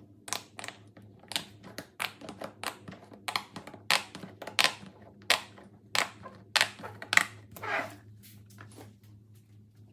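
Plastic fidget toys being handled: an irregular run of sharp clicks and taps with a few brief rustles, over a faint steady low hum. The strokes stop about a second before the end.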